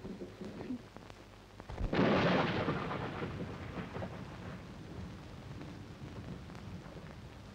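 A clap of thunder about two seconds in, rumbling and slowly dying away, over a steady hiss of rain.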